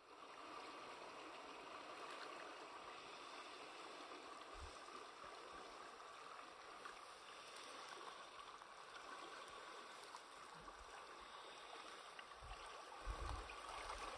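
Flooded Doubs river rushing past the bank, a faint steady wash of moving water, with a few low thumps near the end.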